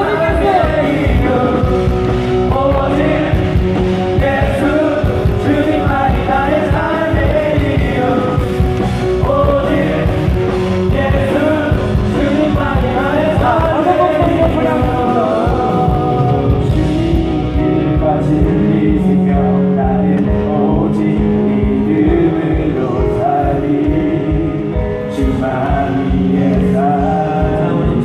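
Live praise-and-worship music from a band with a steady drum beat, and amplified singing over it.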